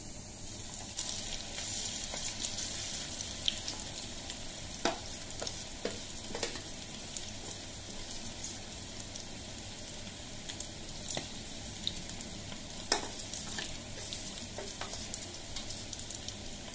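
Marinated, cornstarch-and-egg-coated beef cubes deep-frying in hot oil in a steel kadai, sizzling steadily. The sizzle grows louder about a second in as fresh pieces are dropped in, with scattered sharp clicks and pops.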